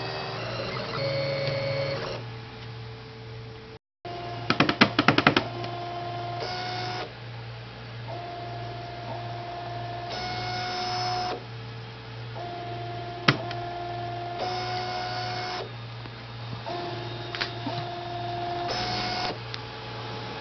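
3D printer's stepper motors whining in steady tones that start, stop and change pitch every second or two as the print head moves through the first layer of a print, over a steady low hum. A quick run of loud clicks comes about five seconds in, and one sharp click past the middle.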